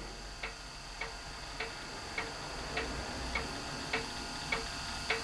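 Soft, evenly spaced ticking, a little under two ticks a second, over a faint steady high-pitched tone.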